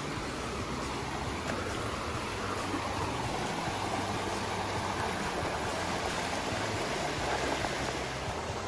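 Shallow creek running over rocks and small riffles: a steady rush of water.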